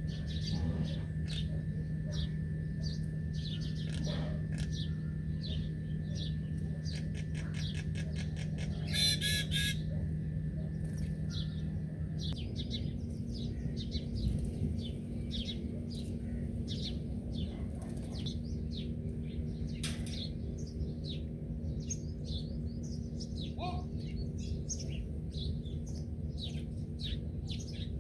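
Small birds chirping continually in many short, quick chirps, with a rapid trill about nine seconds in. A steady low hum runs underneath and shifts pitch about twelve seconds in.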